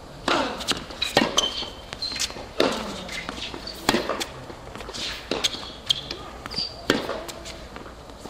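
Tennis rally on a hard court: the sharp pock of rackets striking the ball, with the ball's bounces, a hit about every second and a half.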